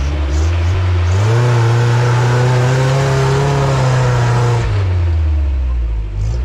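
Engine of a caged Jeep Cherokee trail rig revving up under load as it climbs a steep, muddy slope, held at high revs for about three seconds, then dropping back toward idle near the end.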